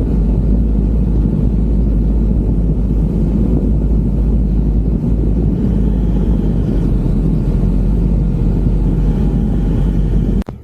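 Loud, steady wind rumble buffeting the microphone of a bicycle rider moving at speed. It cuts off suddenly near the end.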